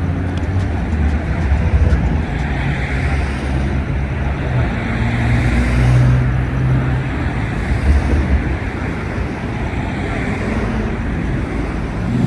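Busy street traffic: a steady hum of engines and tyres, with several vehicles passing one after another, each swelling and fading.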